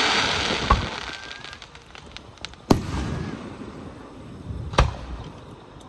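Aerial firework shells bursting: a fading crackle of sparks at the start, then three sharp booms about two seconds apart, the middle one the loudest, with scattered small cracks between them.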